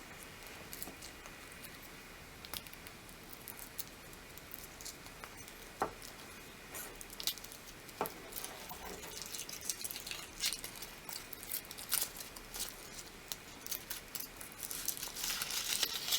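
A Kinder Surprise egg being unwrapped and opened by hand: foil crinkling in short spells, with scattered small clicks and taps of chocolate and plastic capsule being handled.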